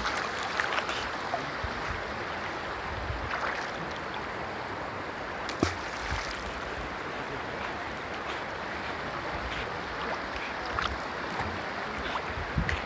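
Shallow river water flowing and lapping close to the microphone, with small splashes throughout and one sharper splash or knock about five and a half seconds in.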